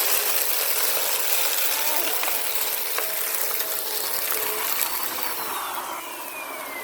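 Bissell Power Force Compact vacuum cleaner running with a loud rushing hiss of suction airflow. Near the end its motor whine glides steadily down in pitch as the sound slowly fades, as if the motor is winding down.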